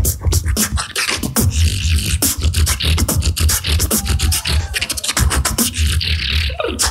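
Solo vocal beatboxing in a battle round: fast, dense rhythm of mouth-made deep bass kicks and sharp snare and hi-hat clicks, with a sliding pitched tone around the middle.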